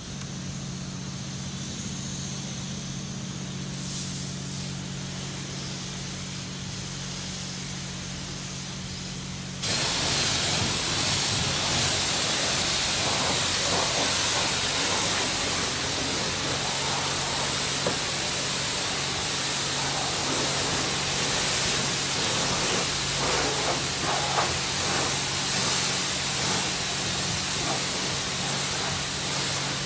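Steady machine hum from the car wash equipment. About ten seconds in, a self-serve car wash wand opens up and loud, steady spray hiss takes over as it sprays clear coat conditioner onto a car's body.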